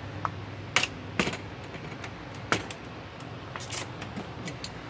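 A few separate sharp clicks and snaps as a hand tool pries at the plastic connector housings on a circuit board to expose their gold pins.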